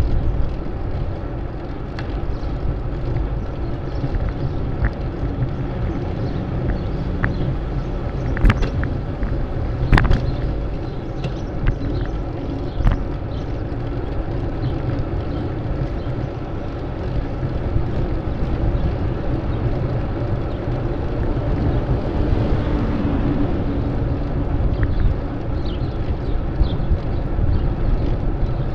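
Riding a bicycle along a city street: wind rushing over the microphone along with road and traffic noise, and a couple of sharp knocks about eight and ten seconds in.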